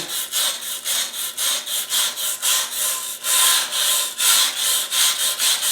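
A wire brush scrubbing back and forth on a drum sander's abrasive paper, about three quick rasping strokes a second, loosening resin buildup softened with mineral spirits.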